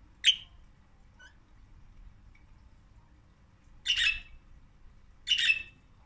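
Pet budgerigars calling: a short sharp chirp right at the start, a couple of faint chirps, then two louder, scratchy calls about a second and a half apart near the end.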